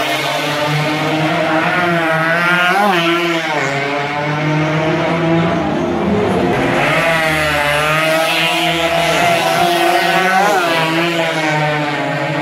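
Motorcycle engines revving repeatedly, their pitch rising and falling several times over a steady drone.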